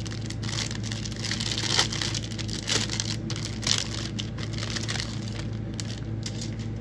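Clear plastic parts bag crinkling on and off as plastic model kit sprues are pulled out of it, over a steady low hum.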